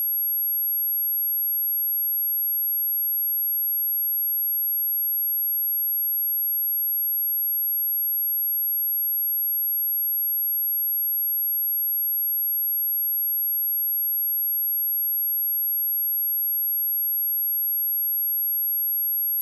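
A pure 11504 Hz sine test tone: a single steady, very high-pitched whistle held unchanged at one level throughout.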